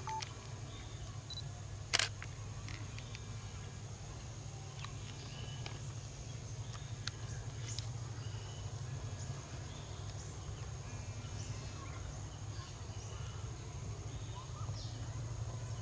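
Quiet rural outdoor ambience: a steady high-pitched insect drone and a low steady hum, with faint scattered bird chirps. One sharp click about two seconds in.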